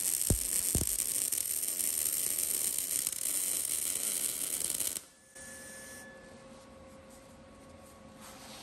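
MIG welder's arc crackling and hissing steadily as a bead is run along a steel square tube, with a couple of sharp pops in the first second. The arc cuts off suddenly about five seconds in, leaving a faint shop hum.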